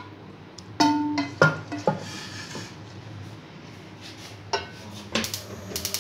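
Metal utensil clinking and scraping against a steel plate as boiled mutton pieces are moved onto it. A couple of strikes about a second in ring briefly with a clear tone, and a run of quick clicks comes near the end.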